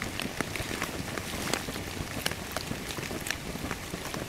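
Rain falling on a tent, a steady hiss with many separate drops tapping irregularly on the fabric.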